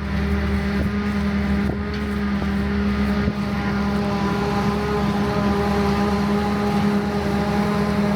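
Heavy farm machinery running steadily, with a constant engine drone at an even pitch.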